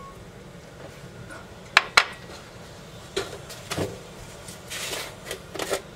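Kitchen utensils and containers clinking and clicking while salt is readied for the soup pot: two sharp clicks close together about two seconds in, then scattered lighter clicks and clatter.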